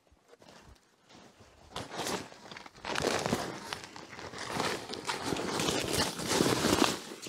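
Plastic tarp rustling and crinkling as it is handled over a firewood stack, mixed with footsteps crunching in snow. It is quiet for the first couple of seconds, with a brief rustle about two seconds in, then loud, continuous rustling from about three seconds in until just before the end.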